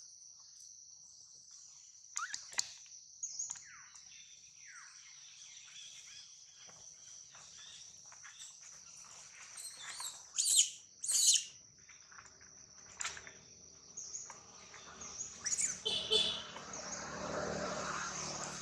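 Steady high-pitched insect drone with short high chirps and calls scattered over it, two sharp loud ones near the middle. A lower, noisy rustling rises near the end.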